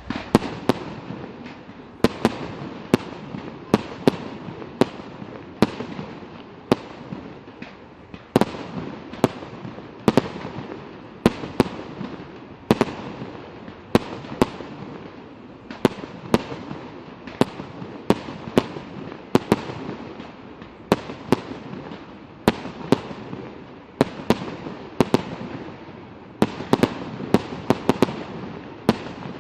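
Fireworks display: a steady run of sharp bangs, roughly one or two a second, over a continuous crackling, rumbling background.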